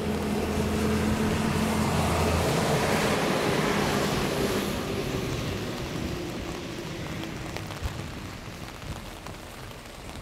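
A strong wind gust buffeting the microphone, with rain on an umbrella, building in the first few seconds and easing after about six seconds. A steady low hum underneath stops about two and a half seconds in.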